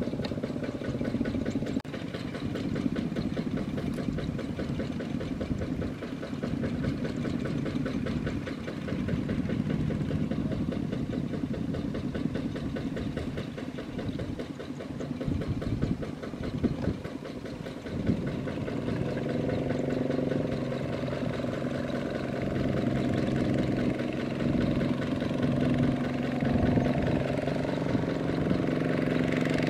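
Kubota RT155 power tiller's single-cylinder diesel engine chugging steadily under load as it hauls a loaded rice trailer through mud. It dips briefly about halfway, then runs louder through the last third.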